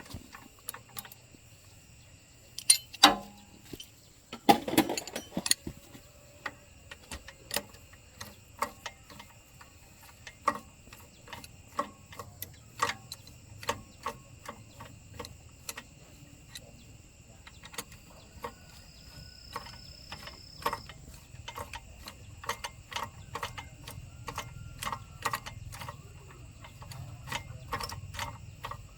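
Hand tools working on tractor parts: a stream of light metallic clicks, with two louder knocks about three and five seconds in and the clicks coming faster near the end.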